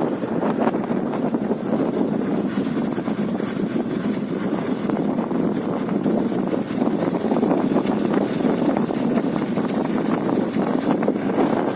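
A vehicle driving steadily along a highway: an even rush of road and wind noise with engine hum underneath.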